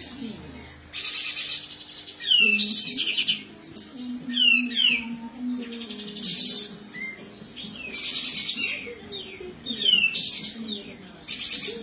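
Caged kapas tembak bulbul calling vigorously in 'besetan' style: about eight loud bursts, each of rapid buzzy rattling notes mixed with quick downslurred whistles, roughly one burst every second or so.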